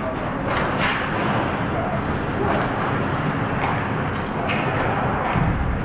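Ice hockey play on the rink: skate blades scraping the ice and sticks clacking, heard as several short sharp scrapes and clacks over a steady rink noise.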